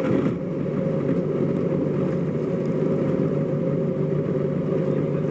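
Motorboat engine running steadily at low speed while towing a rider on an inflatable tube, a continuous low hum.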